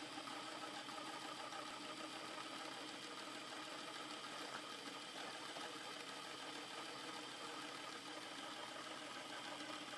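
Electric meat grinder's motor running steadily under load as it grinds pizza through the cutting plate, an even, unbroken hum.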